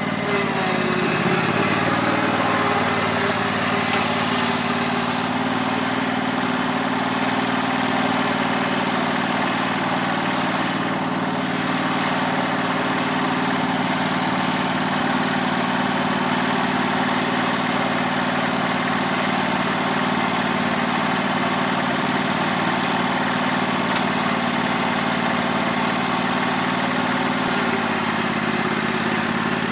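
Autonomous lawn mower running steadily with a constant motor hum. The hum rises in pitch over the first two seconds as it comes up to speed and dips slightly near the end.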